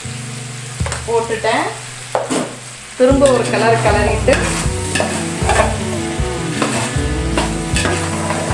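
A metal spoon stirring and scraping diced potatoes in a large aluminium pot, with the oil sizzling as they fry. The scraping becomes louder and almost continuous from about three seconds in.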